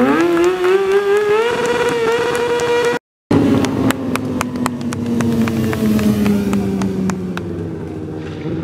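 Sport motorcycle engine revving hard in a smoky burnout, the rear tyre spinning on the asphalt. The pitch climbs in steps for about two seconds, the sound cuts out briefly about three seconds in, then the engine holds high revs with the pitch slowly sinking.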